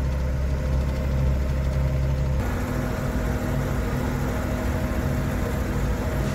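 Tractor diesel engine running steadily under way, heard from inside the cab. The engine note changes abruptly about two and a half seconds in.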